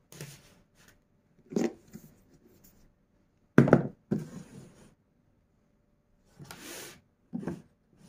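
Plastic water dispenser and a perforated placemat being set down and handled on a marble tabletop: a series of knocks and clunks, the loudest about three and a half seconds in, with a brief rasping sound shortly before a last knock near the end.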